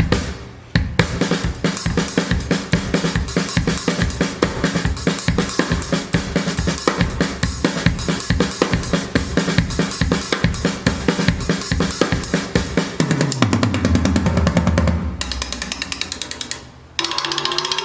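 Recorded drum kit music: kick drum, snare and cymbals played in a fast, busy pattern. A deep drum fill sinks lower in pitch near the end, then the drumming stops briefly before a different passage starts.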